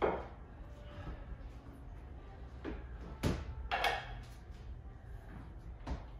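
Ice tools knocking and scraping on plastic climbing holds during dry-tooling: a handful of sharp clunks, the loudest about three seconds in, followed at once by another with a short ring.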